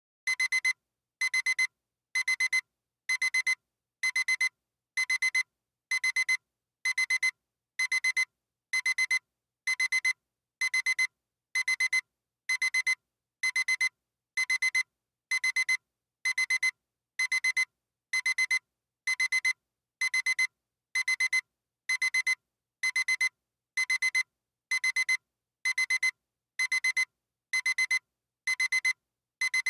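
Radio alarm clock beeping: a short high-pitched electronic beep repeating evenly about once a second.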